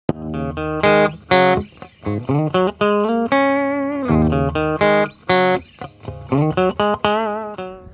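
Instrumental intro music: a melody of short, separate notes.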